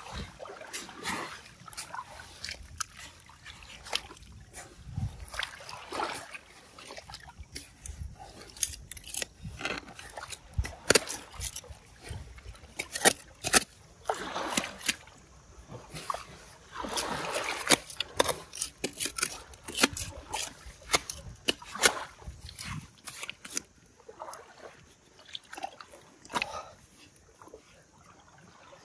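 Water splashing and sloshing in the shallows, with many sharp knocks and clicks throughout and two longer stretches of splashing around the middle.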